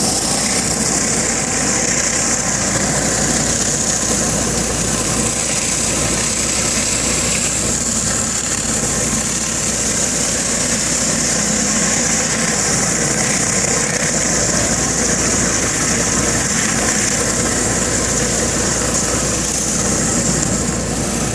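Hot-water pressure washer spraying concrete: a steady high hiss of the spray over the drone of the machine's engine.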